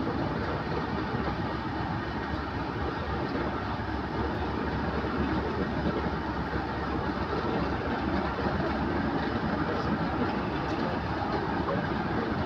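Passenger coaches rolling slowly along the track, a steady rumble of wheels on rail, with the Class 37 diesel locomotive's English Electric engine running at the head of the train.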